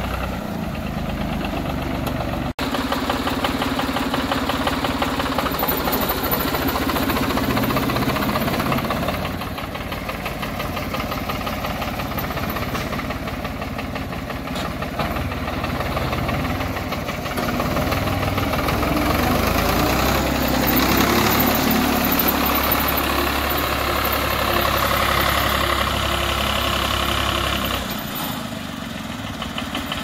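A vehicle's engine running steadily while it drives along, with a brief break about two and a half seconds in.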